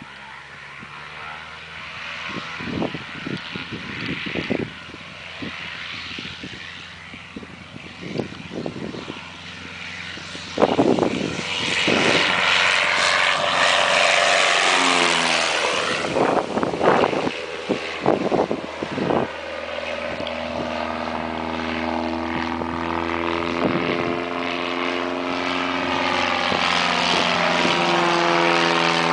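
Light single-engine propeller airplane on its takeoff run. The engine and propeller grow louder as it comes down the grass strip, pass loudest about halfway with the pitch dropping, then settle into a steady engine drone as it climbs away. Irregular rumbling thumps on the microphone come through the first half and just after the pass.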